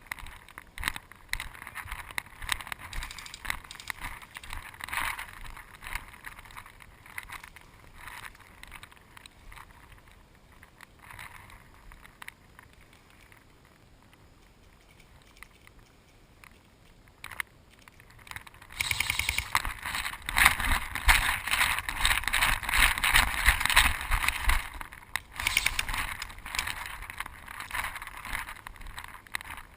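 Close rustling and crunching from a wearable camera moving through woodland undergrowth, quiet at first and much louder for several seconds past the middle, then easing off.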